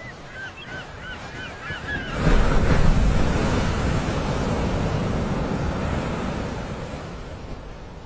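A quick run of short, high, yelping bird calls for about the first two seconds. Then a loud rush of wind buffeting the microphone of a camera carried in flight swells about two seconds in and slowly dies away.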